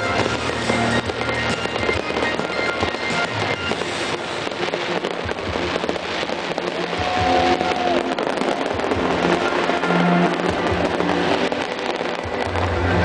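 Fireworks display going off: a dense, continuous crackle and popping from many shells and fountains at once, with music playing alongside.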